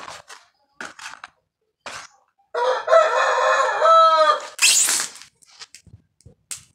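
A rooster crows once, about two and a half seconds in, lasting about two seconds and bending in pitch at the end, followed by a brief loud hissing burst. Before and after it, short scratchy sounds of hands scooping and pressing loose soil into a plastic bucket.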